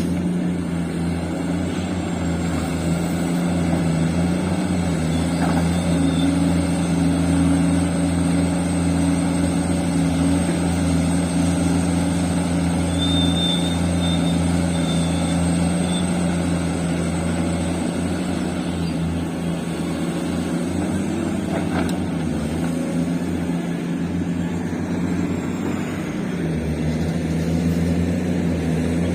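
Heavy diesel engine of mining machinery, an excavator or a haul dump truck, running steadily with a constant low drone.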